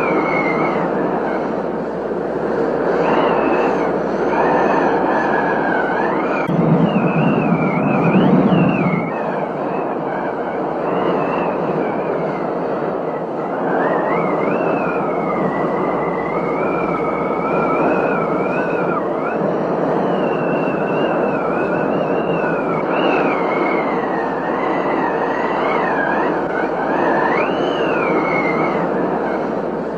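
Thunderstorm: a steady rush of wind and rain, with a wavering whistle that slides up and down in pitch, and a louder low rumble about seven to nine seconds in.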